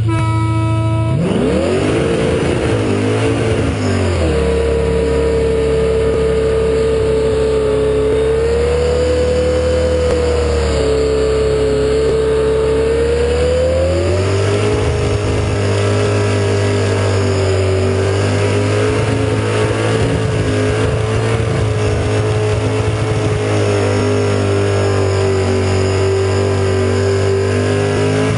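Burnout car's engine revved hard during a burnout, its tyres spinning in thick smoke. The revs climb steeply about a second in, dip briefly, then are held high and steady with small wavers, easing slightly about halfway through.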